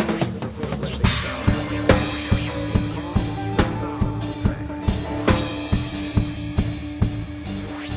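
Live band music: a drum kit keeps a steady beat of a little over two strokes a second under a long held low note, with a loud hit about a second in.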